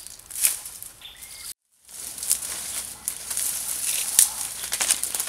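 Footsteps in rubber boots crunching and rustling through dry leaf litter, twigs and brush, in irregular crackles. The sound drops out completely for a moment about a second and a half in.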